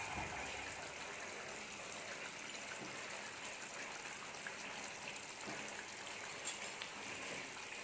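Chicken curry sizzling steadily in oil in a kadai, the oil having separated from the masala.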